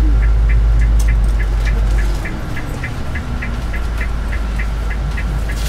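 Coach's engine and road drone heard from inside the cabin, easing off about two seconds in, with a fast, even ticking running over it.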